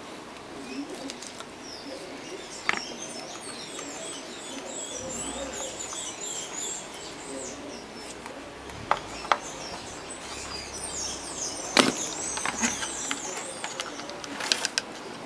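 Small birds chirping busily in the background, with a few sharp clicks and knocks from a circuit board being handled on a workbench. The loudest knock comes about twelve seconds in.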